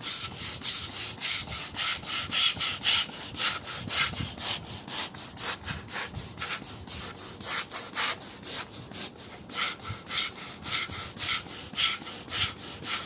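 Rapid rhythmic rubbing strokes, about three a second, from cleaning dust out of the inside of an opened laptop.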